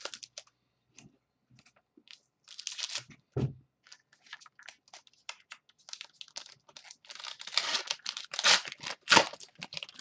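Plastic wrapper of a Contenders football card pack being torn open and crinkled, with the cards clicking and sliding against each other. The crinkling is busiest in the second half.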